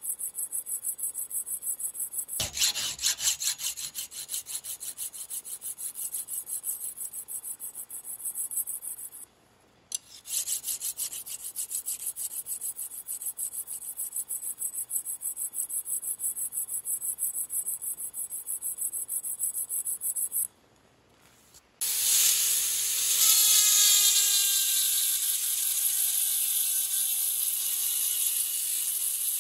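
Flat steel file rasping back and forth across the steel of a rusty hammer head held in a vise, in even, rapid strokes that break off twice briefly. Near the end a small rotary tool with a grinding burr starts up and runs with a steady whine, its pitch sagging a little as the burr bites into the hammer.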